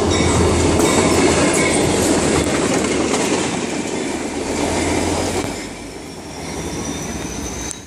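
Short freight train led by a Norfolk Southern EMD GP40-2 diesel locomotive passing close by: steady diesel engine rumble and wheels clattering over rail joints. The sound drops after about five and a half seconds as the last car goes by, and a faint high whine rises near the end.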